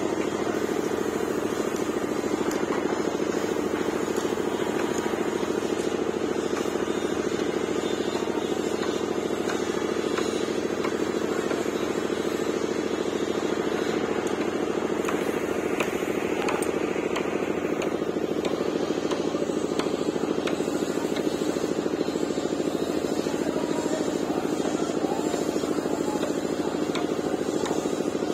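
Steady, unchanging drone of a running motor or engine.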